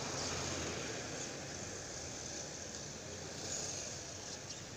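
Steady road and traffic noise from a vehicle moving along a town street, with a few faint clicks.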